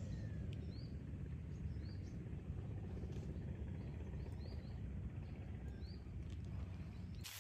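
A bird gives short rising chirps about once a second over a steady low rumble.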